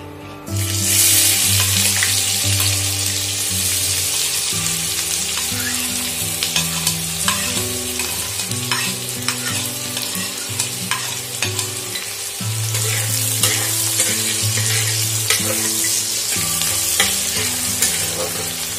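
Chopped onions dropped into hot oil in a steel kadai: a loud sizzle that starts suddenly about half a second in, then steady frying with the taps and scrapes of a spatula stirring against the pan.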